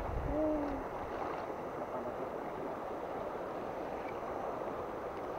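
Steady rush of a shallow river current running over rapids.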